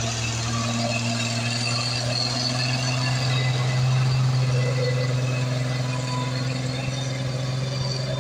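Loaded Mitsubishi Fuso truck's diesel engine running steadily under load at unchanging revs as the truck climbs slowly past, loudest about four seconds in.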